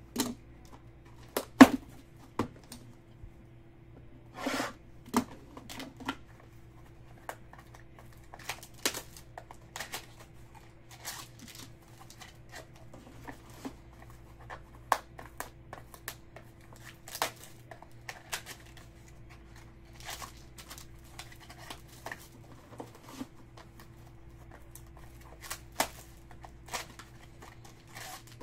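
Hands opening a cardboard hobby box of Topps Museum Collection baseball cards and lifting out the packs: scattered taps, clicks and paper-and-cardboard rustles. The loudest click comes about one and a half seconds in, and a longer rustle around four and a half seconds.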